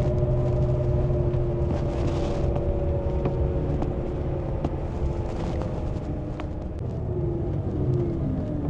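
Road vehicle driving, heard from inside: a steady engine and road rumble with a steady whine that drops in pitch near the end as the vehicle slows down.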